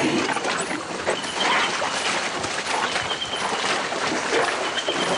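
Pack elephants' feet squelching and splashing through deep wet mud as they walk: a dense, irregular wet sloshing.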